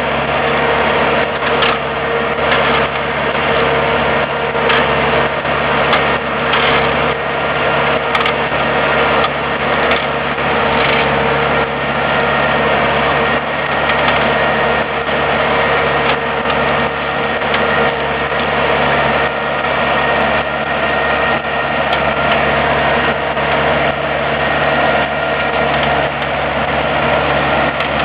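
Ursus C-355 tractor's diesel engine running steadily at an even pace, the tractor working on the plough.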